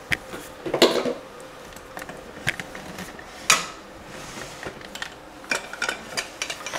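Scattered light clicks and knocks, the sharpest about a second in and halfway through. They come from a dog shuffling about on a tile floor, with the metal clip of her leash and her collar rattling as she is handled.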